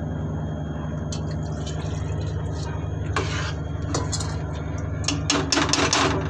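Water poured a little at a time from a lota into a kadhai of spiced mashed potatoes and stirred in with a steel spoon, over a steady low hum. The pouring and clatter are loudest about five to six seconds in.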